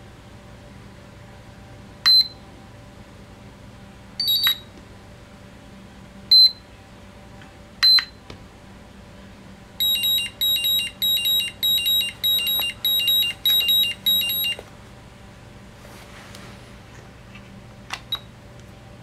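Beeper of an iMAX B6 LiPo balance charger. Short single beeps sound as its buttons are pressed, with one double beep, then a run of about a dozen quick beeps, about two and a half a second, as the balance-charge program starts.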